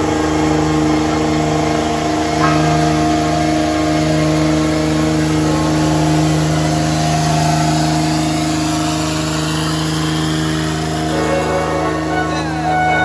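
A vehicle engine running at a steady speed, holding one constant pitch throughout, with faint voices in the background.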